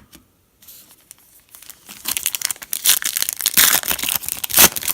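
Trading-card pack wrapper being torn open and crinkled by hand, starting about two seconds in and growing denser toward the end.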